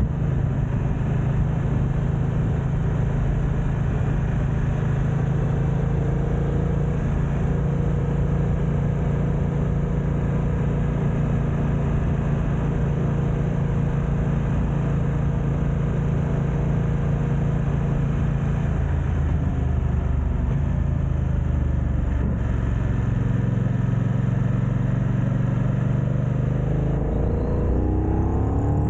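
BMW F900XR motorcycle's parallel-twin engine running under way, with wind noise on the microphone. The engine note changes about two-thirds of the way in and rises near the end as the bike accelerates.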